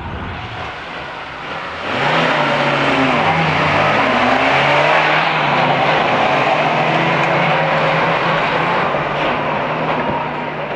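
Suzuki off-road 4x4s, a Samurai and a Vitara, accelerating hard from a race start: engine noise rises sharply about two seconds in, with revs climbing, then holds at high revs and eases slightly near the end.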